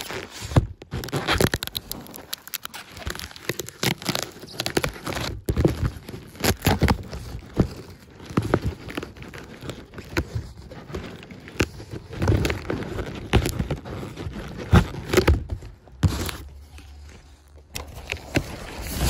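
Packaging being handled and opened: a dense run of irregular rustling, crinkling and knocks, easing off briefly near the end.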